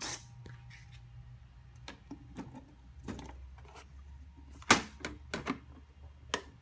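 A sharp click at the start, then a scattering of light clicks and knocks, as a vending machine's small acrylic compartment door with a servo-driven slide-bolt latch is unlatched and a small cardboard box is pulled out past the acrylic shelves. The loudest knock comes a little past the middle, with a few more near the end.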